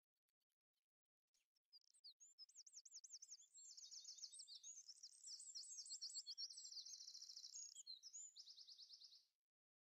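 A songbird singing faintly: fast, high trills and warbling phrases in quick succession, starting about a second and a half in and stopping shortly before the end.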